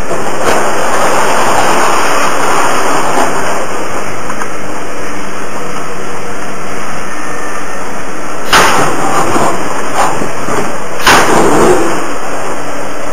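Komatsu hydraulic excavator demolishing a building: its engine runs under a loud, constant rush of noise, with two sharp crashes of rubble and bucket in the second half, a couple of seconds apart.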